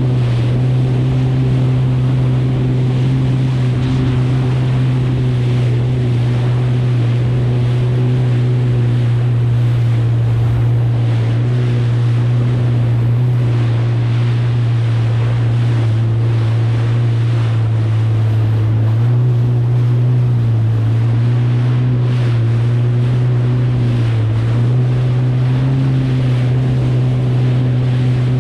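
Kawasaki STX 160X jet ski's four-cylinder four-stroke engine running at a steady cruising speed, its pitch dipping briefly twice in the second half as the throttle eases. Rushing water and wind noise on the microphone run under it as the craft crosses the chop.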